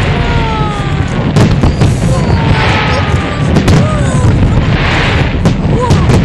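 A barrage of aerial firework shells bursting, with a continuous rumble of booms and many sharp cracks. Thin whistling tones glide up and down over the top.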